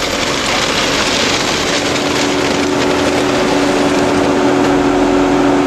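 A vehicle running steadily: a loud even hiss of engine and fan noise over a constant two-note hum.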